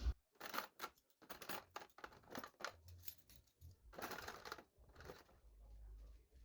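Faint, irregular clicks, knocks and rustles of household items being handled and set down in a small kitchen, as during cleaning and tidying.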